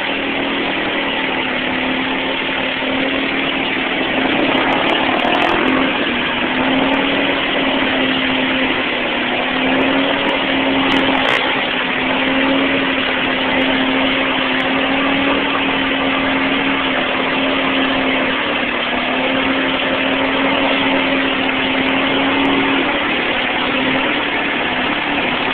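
ATV engine held at steady high revs, the pitch wavering slightly, as the quad churns through deep mud and bogs down.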